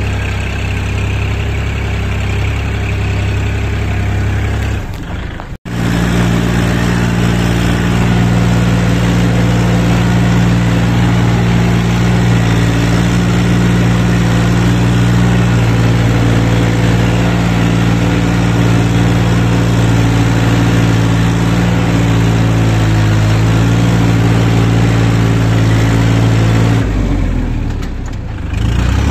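Tractor diesel engine running steadily under load, heard from the driver's seat as it drives through a muddy, harvested rice paddy. Its sound cuts out for an instant about five seconds in and comes back louder. It dips briefly near the end.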